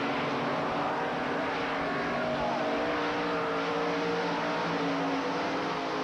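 Several dirt late model stock cars running around the track at race speed, their engines blending into one steady drone. The individual engine notes slowly rise and fall as the cars pass and go through the turns.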